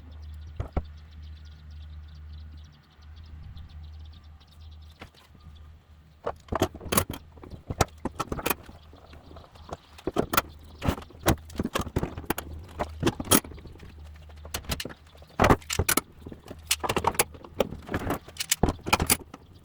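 Clamps being set and tightened on a glued-up wooden box: a long run of sharp, irregular metal clicks and knocks, starting about six seconds in, over a steady low hum.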